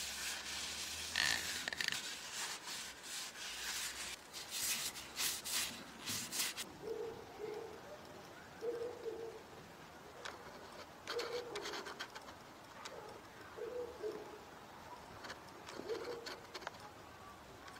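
A cloth rubbing in quick strokes over a wooden mallet head, which stops abruptly about six and a half seconds in. After that, a bird's short low coos come every second or two, faint, with a few light clicks.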